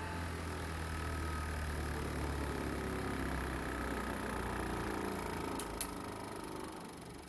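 Bauer 6-inch bench grinder running with a steady low hum, quiet and smooth. About five and a half seconds in come two sharp clicks, and the hum then begins to fade.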